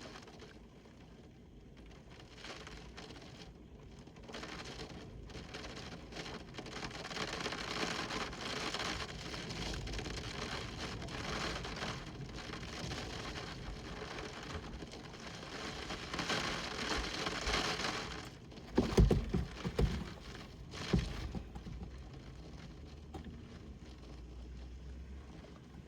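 Windstorm: a steady rush of wind and falling precipitation that swells through the middle and then eases off. A few loud low thumps come about three-quarters of the way through.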